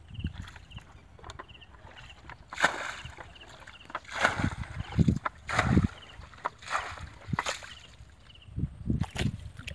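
Bare legs wading through shallow muddy water, sloshing and splashing in uneven bursts with the steps, the loudest from about two and a half seconds in.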